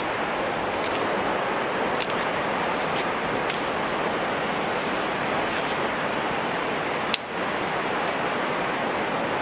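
Trekking pole tips and boots clicking on granite trail rocks, a sharp tick every second or so, over a steady rushing noise.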